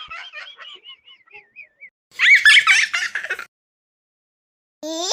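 Comic sound effects between jokes: a fading, warbling tone, then a loud wavering whistle-like squeal lasting just over a second. Near the end a high, bubbly giggling laugh starts.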